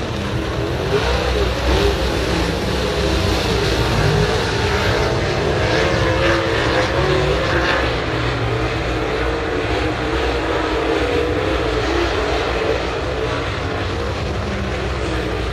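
A field of dirt-track super late model race cars running laps, their V8 engines making a continuous loud drone whose pitch wavers up and down as the cars go around the track.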